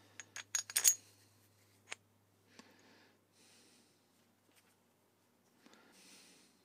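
A quick run of small metallic clicks and clinks in the first second, and one more near two seconds in, as a hex-head steel bolt is handled in a steel clamp plate. Faint rubbing and handling follow.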